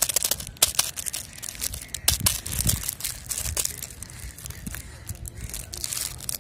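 Clear plastic wrapper of a swirl lollipop crinkling and crackling under the fingers as the twist tie at its neck is worked loose; the crackles come thickest in the first few seconds and thin out after.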